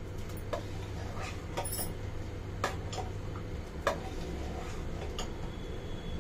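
Metal ladle clinking against a stainless steel pot while stirring thick barley-and-milk kheer: several sharp, irregularly spaced clinks over a low steady hum.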